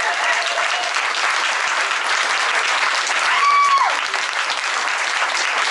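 Audience applauding, a dense patter of many hands clapping, with one person's brief high whoop about three and a half seconds in that drops off at its end.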